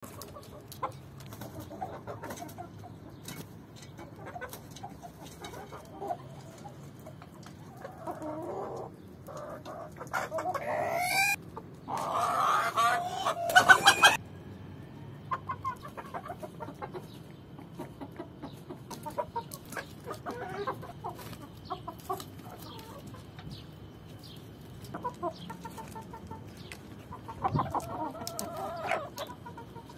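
A flock of chickens clucking, with short scattered calls. A rooster crows loudly about halfway through, rising in pitch and cut off abruptly. A shorter burst of calls comes near the end.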